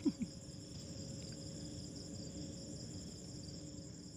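Crickets chirring steadily. Right at the start come two short, low blips, each falling in pitch; these are the loudest sounds.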